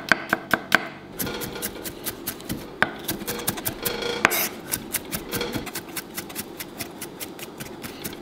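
Kitchen knife chopping garlic finely on a cutting board: a long run of quick, even strokes, several a second, speeding up after about a second.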